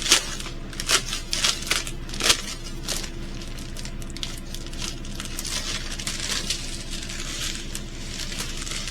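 Plastic packaging of a diamond painting kit crinkling as it is handled. There are several sharp crackles in the first three seconds, then softer rustling.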